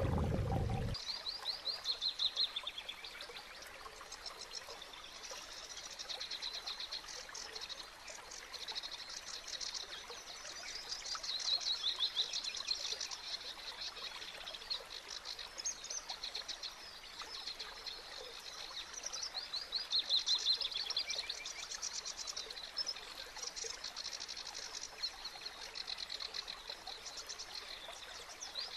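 Riverside birdsong: rapid, high chirping and trilling phrases that go on without a break, over a faint trickle of water. In the first second a muffled low rush of water, heard from under the surface, cuts off suddenly.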